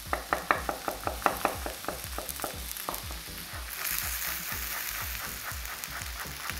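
Chef's knife finely chopping a garlic clove on a wooden cutting board in quick, even taps, about four or five a second, over the steady sizzle of sweet potato slices frying in a grill pan. The sizzle grows louder about four seconds in.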